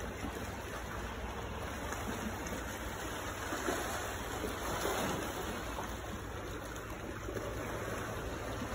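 Sea water washing among shoreline boulders: a steady rushing that swells a little in the middle.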